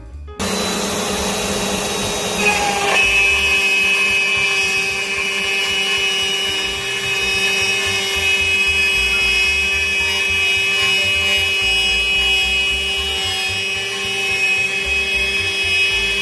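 Shark HD5 CNC router's spindle running at 18,000 rpm with a 1/4-inch down-cut end mill, milling a slot at a 40-inch-per-minute feed: a steady whine over cutting noise. A sharper, higher whine comes in about two and a half seconds in and holds steady.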